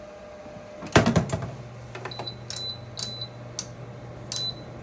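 Glass door of a countertop air fryer oven shut with a loud clack about a second in, after which a steady low hum starts, and the control panel gives a series of short high beeps as its buttons are pressed to set the time and temperature.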